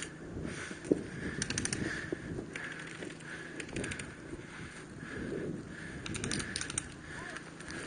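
Three short bursts of rapid clicking airsoft gunfire, each under half a second long, about two and a half seconds apart. Continuous rustling from movement through long grass runs underneath.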